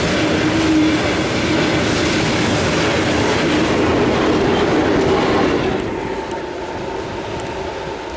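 Hopper wagons of a freight train rolling past close by, their wheels clattering over the rail joints, then a two-section diesel locomotive passing. About six seconds in the sound drops to a quieter, more distant train rumble.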